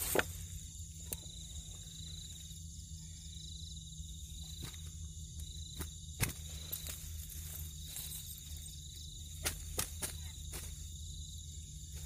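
Steady high-pitched trilling of night insects such as crickets. About eight sharp clicks and rustles of hands working in a nylon net among dry leaves are scattered through it.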